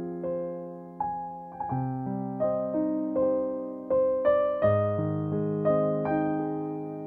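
Background music: slow, gentle piano, single notes struck and left to fade over sustained chords, with deeper bass notes entering partway through.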